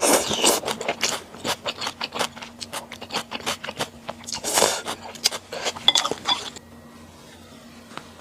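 Close-miked eating sounds: a quick run of wet mouth clicks and chewing noises with a few louder bursts, stopping about six and a half seconds in.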